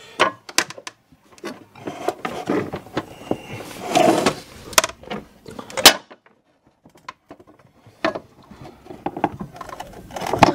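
Handling noises from a stainless-steel George Foreman contact grill: a run of sharp clicks, knocks and rubbing as its lid is worked by hand. The loudest click comes near the middle, then a quiet spell of about two seconds, then a few more clicks.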